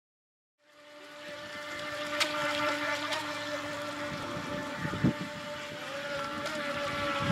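Rage RC AquaDart electric RC speedboat running across the water, its motor whining steadily, fading in about half a second in. A few sharp clicks and a low thump about five seconds in.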